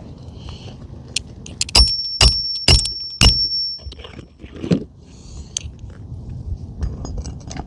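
Four hammer blows on a roof snake, a steel shingle-nailing tool, driving a roofing nail under a 3-tab asphalt shingle; each strike gives a bright metallic ring. A few softer knocks and scrapes of the tool follow.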